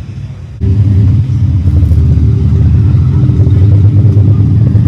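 Motor vehicle engine running steadily, a low rumble that jumps abruptly louder about half a second in.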